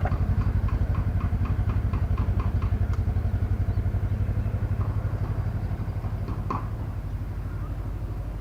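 A small engine running steadily at idle with an even, fast pulse and some light ticking, growing slowly fainter.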